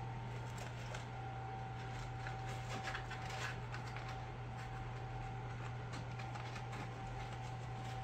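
A raccoon nosing and pawing at a cardboard French-fry carton, making soft, irregular crinkles and light clicks, over a steady low hum.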